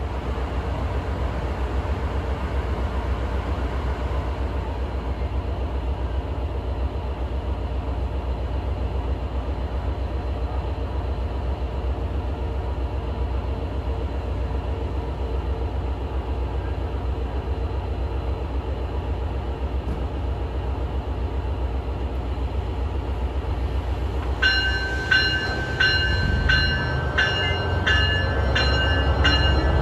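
A train passing on the line, a steady heavy rumble of wheels on rail. About three-quarters of the way through, a repeated metallic ringing starts, roughly two strikes a second, over the rumble.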